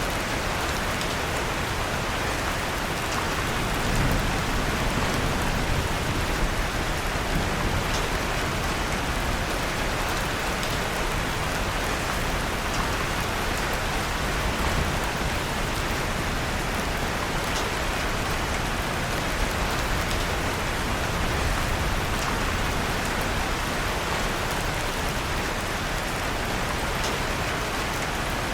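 Steady rain falling on a surface, mixed with the faint occasional crackle of a wood fire in a fireplace.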